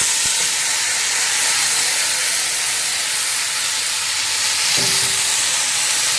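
Washed, drained rice sizzling steadily in hot ghee: the loud frying hiss of the water left on the grains cooking off.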